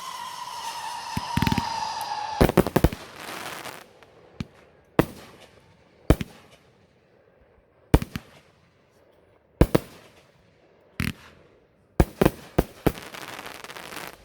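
Fireworks going off: a whistling firework's whistle falling slowly in pitch, then sharp bangs, first a quick cluster, then single reports every second or two, and another quick cluster near the end.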